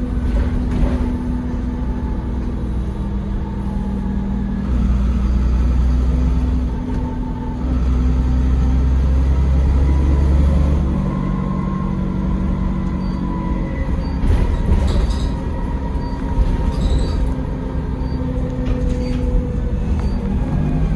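Dennis Trident double-decker bus heard from inside the saloon while running: a steady engine and drivetrain drone with a higher whine. The low rumble swells twice, around 5 s and again from 8 to 11 s, and a few knocks and rattles come through about 14 to 17 seconds in.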